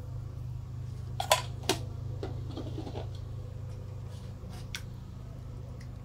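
A metal ladle clicking against a cooking pot of simmering rice broth, two sharp knocks close together about a second in and a lighter one later, over a steady low hum.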